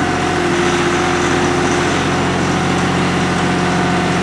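Kioti compact tractor's diesel engine running steadily under throttle as the tractor moves slowly forward in four-wheel drive.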